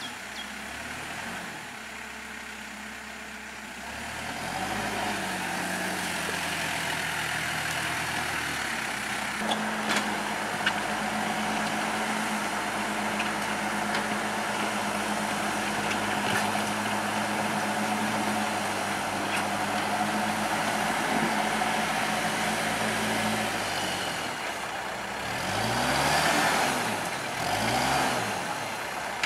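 A road vehicle's engine runs steadily. Its pitch climbs and settles higher about four to five seconds in. Near the end the engine sound swells and falls in pitch twice, like vehicles passing close by.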